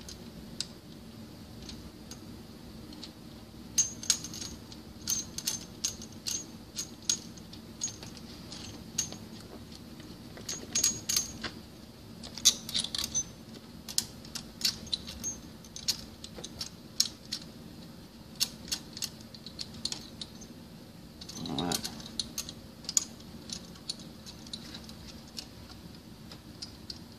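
Scattered sharp metallic clicks and clinks, some ringing briefly, as steel parts of a centrifugal pump's mechanical seal assembly are handled and fitted into place by hand. A short scraping rub comes a little past two-thirds of the way in, over a faint steady hum.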